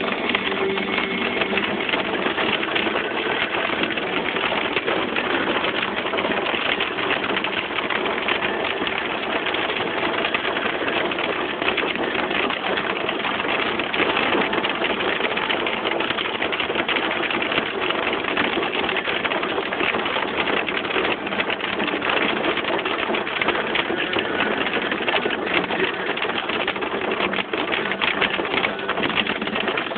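Hail pelting the windshield and roof of a Ford Edge SUV, heard from inside the cabin: a steady, dense clatter of countless small impacts.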